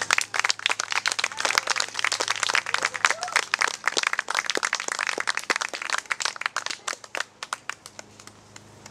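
A small audience applauding, individual hand claps distinct and irregular, thinning out and fading near the end.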